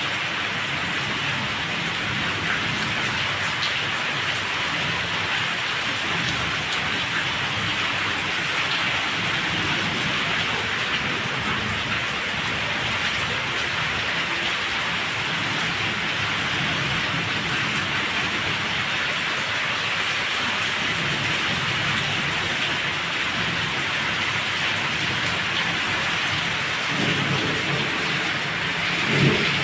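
Heavy rain pouring steadily. Near the end there is a brief low rumble with one short louder peak.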